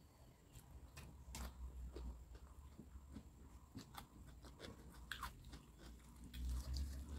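A person chewing a mouthful of rice, with soft wet mouth clicks and smacks at irregular moments. A low steady hum runs underneath.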